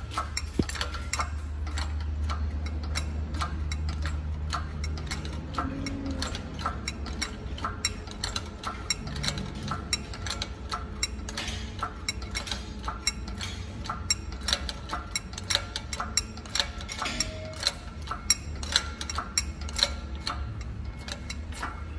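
Shop press slowly pressing a monoball spherical bushing into a BMW M2's front tension arm: a steady run of sharp, irregular clicks and ticks, with a low hum over the first five seconds or so.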